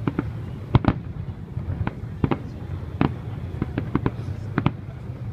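Aerial firework shells bursting in a quick, irregular string of sharp bangs, about three a second, over a low steady rumble.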